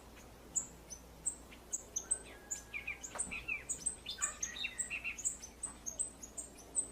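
Jamaican euphonia (blue quit) calling: a quick series of short, high chips that drop sharply in pitch, about three a second, with some lower chirps mixed in midway.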